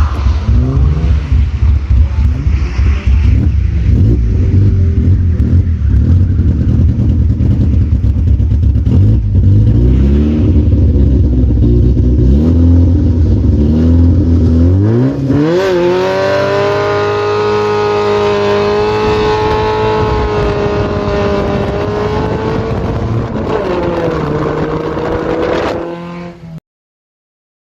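Car engine being driven hard: revs rise and fall repeatedly, then it climbs to high revs and is held there for about ten seconds with a brief dip, before the sound cuts off abruptly.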